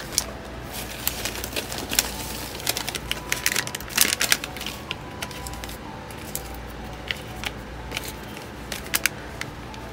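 Cellophane packets and paper craft items being handled and set down on a desk: irregular crinkles, taps and clicks.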